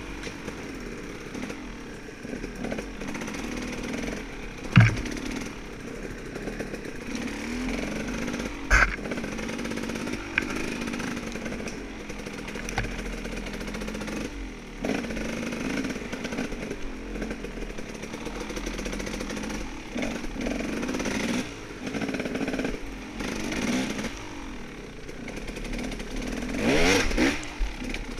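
Off-road dirt bike engine running at low speed, its pitch rising and falling as the throttle is blipped, with two sharp knocks about five and nine seconds in and harder revving near the end.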